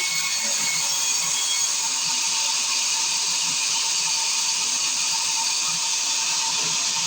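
Sawmill circular saw running steadily, a high, even whine and hiss.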